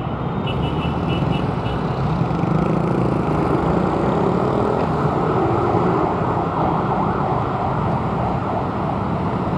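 Steady rush of busy road traffic heard from a moving bicycle, with wind noise on the microphone, and a few short high horn beeps in the first couple of seconds.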